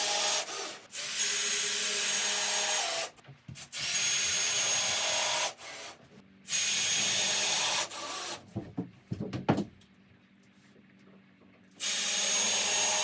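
Power drill driving screws through 7/16-inch OSB floor sheets into attic floor joists. It runs in about five separate bursts of one to two seconds, each with a steady whine, and there are scattered clicks and knocks between them.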